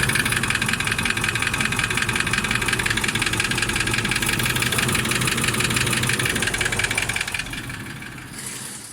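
Toyota 1VD-FTV twin-turbo V8 diesel idling warm after a full rebuild, with an even, rapid diesel clatter and no knock. The sound fades away near the end.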